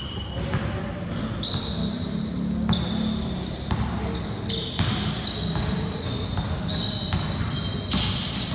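Basketball game sounds: sneakers squeaking on the court over and over, short high squeals one after another, with the ball bouncing and voices in the background.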